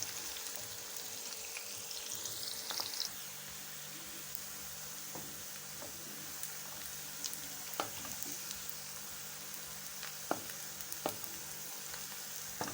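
Chopped onions sizzling as they fry in hot cooking oil, being browned, with a few short clicks of the utensil turning them in the pan.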